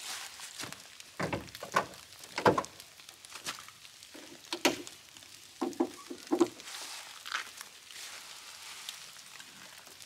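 Footsteps in dry leaf litter and a few sharp clicks and clunks as the Opel Karl's bonnet is released, lifted and propped open, with a short squeak partway through.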